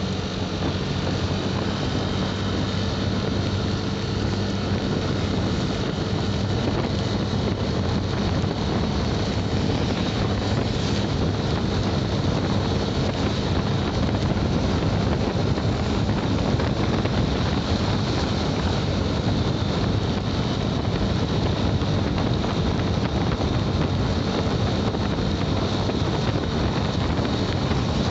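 Steady wind rush over the microphone of a motorcycle under way, with the motorcycle's engine humming faintly beneath it.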